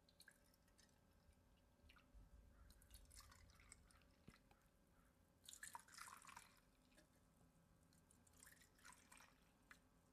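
Faint pouring and dripping of a liquid gelatin mixture into small shot cups, in a few short spells, the clearest about six seconds in.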